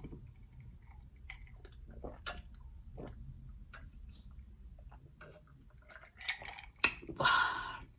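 A person chewing food with small wet mouth clicks. A short, louder rush of noise comes near the end.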